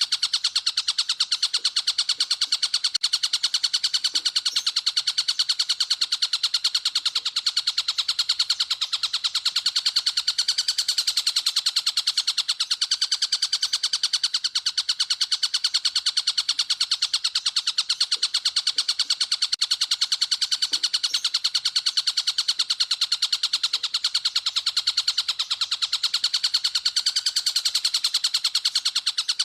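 A masteran songbird recording: a fast, continuous chirping trill of evenly repeated high notes, many per second, going on without a break.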